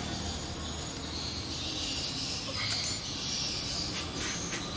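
Light metallic clicks from small timing-chain parts of a Honda Blade engine being handled and fitted, the sharpest a little under three seconds in and a few fainter ones near the end, over a steady background hiss.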